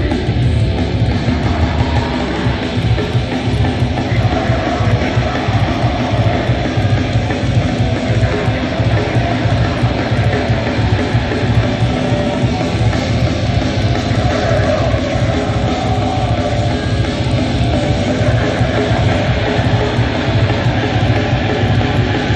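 Live grindcore band playing loud: distorted electric guitar, bass and drums in a dense, unbroken wall of sound.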